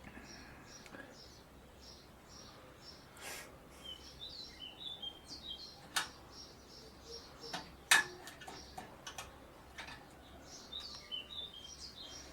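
Small birds chirping over and over in quick short notes, some falling in pitch. A few sharp clicks or knocks cut in, the loudest about eight seconds in.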